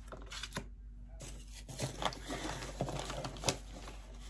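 Rustling and light irregular clicks of packaging being handled as a plastic-sleeved print is set down and items are lifted out of a cardboard box. The handling gets busier about two seconds in, with one sharper click a little later.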